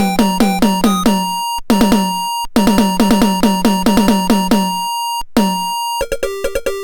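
Electronic toy music from a VTech Alphabet Fun Desk: a synthesized tune of short, repeated notes over a drum-machine beat, about four notes a second with a held high note in between. Two brief gaps break it, and near the end it switches to a different, busier melody.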